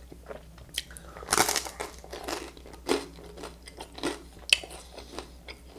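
Close-up crunching and chewing of thin toasted rye bread topped with saucy canned pasta, in a run of short crackly crunches. The biggest crunch comes about a second and a half in, and there is a sharp crack near the end.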